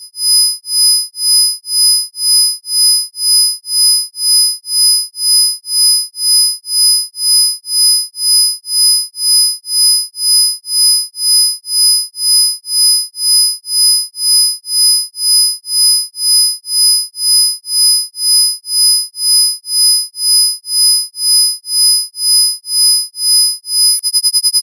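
Synthesized isochronic tones: pure sine tones at about 5 kHz and 10 kHz, with fainter higher and lower tones, pulsed on and off together a little more than once a second. Near the end the pulsing changes to a rapid flutter.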